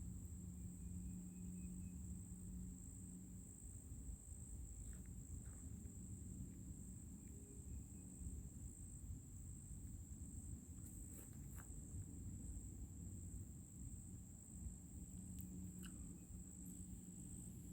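Insects in the forest, crickets or similar, holding one steady high-pitched buzz over a low rumble, with a few faint clicks in the second half.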